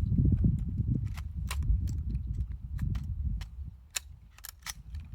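Uneven low rumble with about a dozen light, irregular clicks and taps; the rumble eases near the end. These are not gunshots.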